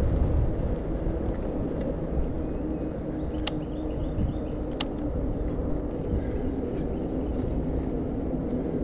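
Steady rumble of road and wind noise on a bicycle ride along a road with car traffic, and two sharp clicks a little over a second apart near the middle.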